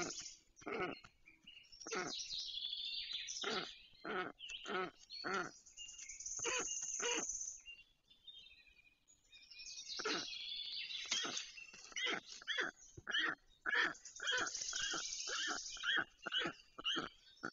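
Black storks calling at the nest: runs of short, repeated calls with a quieter pause about eight seconds in, and two spells of high hiss.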